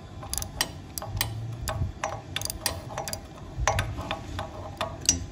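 Ratchet wrench clicking in short, uneven runs as its handle is swung back and forth, turning a nut welded onto a broken exhaust stud bolt in a Honda Ape 50's cylinder head to back the stud out.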